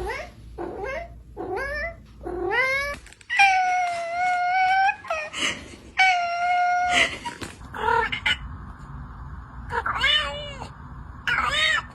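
A pet calling out insistently: a run of short rising cries about twice a second, then two long drawn-out calls held on one pitch, then a few more rising cries.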